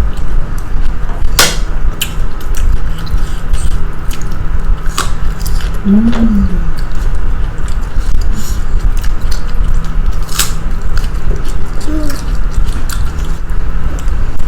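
Eating at a table: sharp clinks of a spoon on a plate a few times over a steady low rumble, with a short hummed voice sound about six seconds in.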